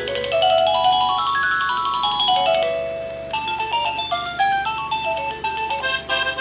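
Wireless doorbell receiver playing its electronic chime melodies as the tunes are cycled through: a run of notes climbing then falling, then a different tune starting about three seconds in.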